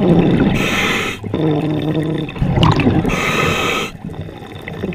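Open-circuit scuba regulator breathing heard by the diver: an inhalation drawn through the regulator with a hiss about half a second in and another about three seconds in, each followed by exhaled bubbles gurgling out of the exhaust valve.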